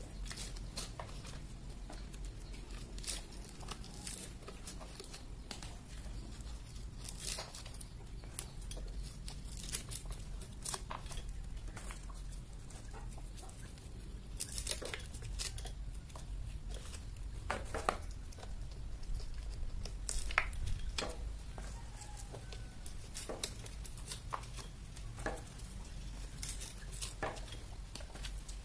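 Hand-cranked areca nut peeler stripping dry husks off areca (betel) nuts: irregular cracking, tearing and snapping of husk, several sharp cracks a second.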